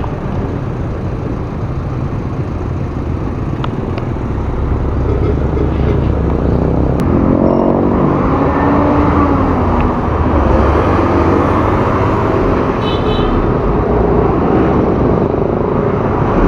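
Motorcycle running on the road with wind noise over the microphone, growing louder over the first several seconds; the engine pitch shifts around the middle as it speeds up.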